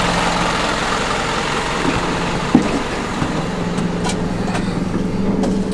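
Box truck engine idling steadily. About two and a half seconds in, the truck's side-door latch clicks open.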